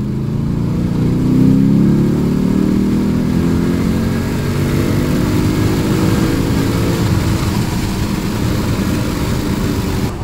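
Lexus IS F's 5.0-litre V8 at full throttle in third gear, its note climbing steadily in pitch toward redline through a muffler-delete exhaust, heard from inside the car. About seven seconds in the climb ends and a steady engine and road rumble carries on.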